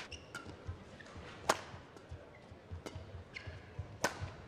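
Badminton racket strokes hitting the shuttlecock during a rally: two loud, sharp hits about a second and a half in and just after four seconds, with fainter ticks and low thuds between them.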